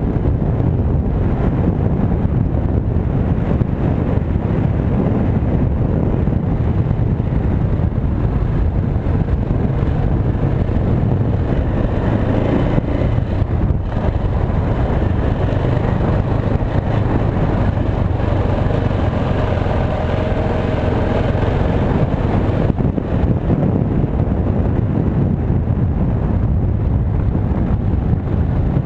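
KTM 690 Enduro R's single-cylinder engine running under way as the bike rides along a dirt track, heard loud and close from a helmet-mounted camera.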